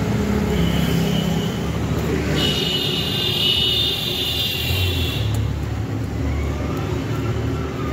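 A motor vehicle engine running close by, a steady low rumble. About two and a half seconds in, a high, steady tone sounds for about three seconds.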